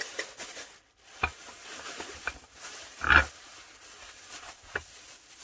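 Thin plastic grocery bags rustling and crinkling as they are handled and twisted closed, with a few sharp knocks; the loudest is a heavier thump about three seconds in.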